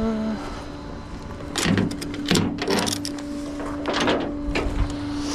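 A vehicle engine running steadily, with several short clanking or hissing bursts from about a second and a half in.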